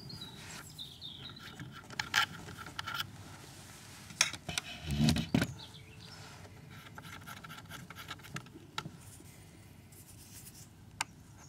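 Scattered light clicks and scrapes as a grinding stone is fitted to a Granberg chainsaw chain grinder by hand, with a duller knock about five seconds in; the grinder motor is not running.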